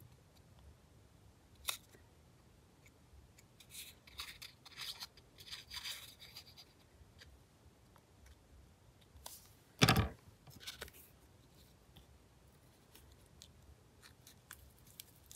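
Quiet paper rustling and scratchy handling noises as dots of glue are squeezed onto a paper flower cut-out, with one sharp knock about ten seconds in as the glue bottle is set down on the table.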